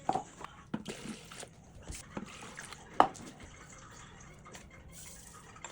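Water running and splashing, as at a kitchen tap, with several sharp knocks; the loudest comes about three seconds in.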